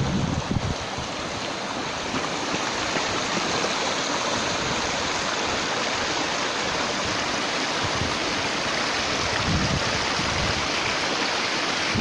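A small rocky stream running and splashing over rock steps and little cascades, a steady rush of water. Wind buffets the microphone in the first second and briefly again a little before the end.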